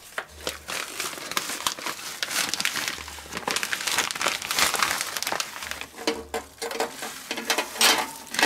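Clear plastic vacuum-sealer bag crinkling in many small, irregular crackles as gloved hands slide a spice-rubbed pork neck into it, ready for vacuum sealing.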